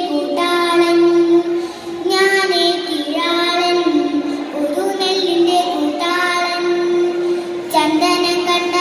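A young girl singing a Malayalam poem to a slow melody (kavitha chollal recitation) into a microphone, in long held notes, with a new phrase starting about every two to three seconds.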